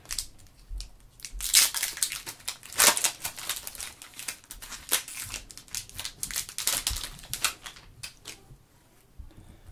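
Foil trading-card pack wrapper being torn open and crinkled while the cards are pulled out, a run of crackling rustles that is loudest in the first few seconds and dies away near the end.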